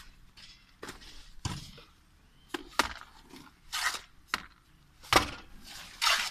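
A shovel scraping through wet cement mortar in a metal wheelbarrow and flinging it against a concrete-block wall: a string of short scrapes and slaps, about eight in all, coming quickly.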